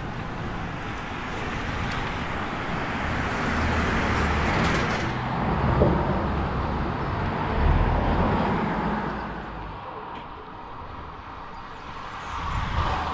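Rushing road noise that swells to a peak about six to eight seconds in and then fades, as a time-trial bicycle with a rear disc wheel passes close by against background road traffic. It rises again near the end.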